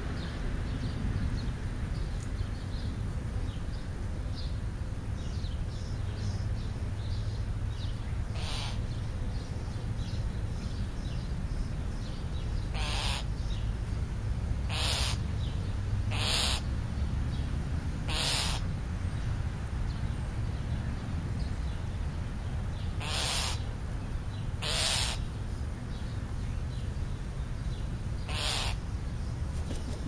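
Crow cawing: about eight harsh calls at irregular intervals, one to five seconds apart, with faint small-bird chirps between them over a steady low rumble.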